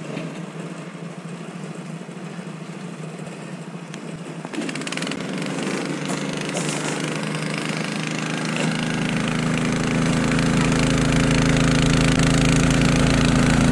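Motorized snow tug's small engine running under load as it climbs a snowy slope towing a sled. It grows louder as it comes closer, stepping up about four and a half seconds in and again near nine seconds.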